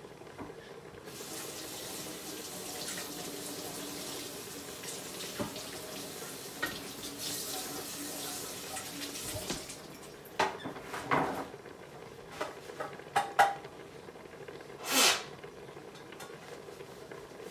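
Kitchen tap running into the sink while a colander is rinsed, stopping about nine seconds in. Then comes a series of knocks and clatters as the colander is handled, and a brief louder rush about fifteen seconds in.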